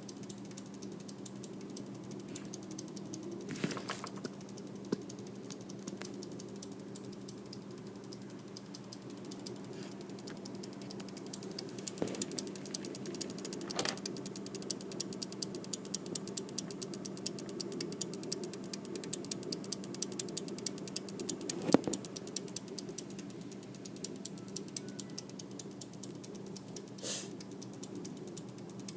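Seasonic computer power supply making an odd noise: a fast, continuous ratchet-like clicking over a steady hum, with a few louder clicks here and there.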